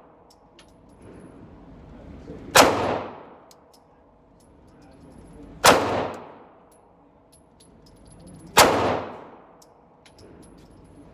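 Glock 26 Gen 4 9mm pistol firing three single shots, about three seconds apart, each with a short ringing echo.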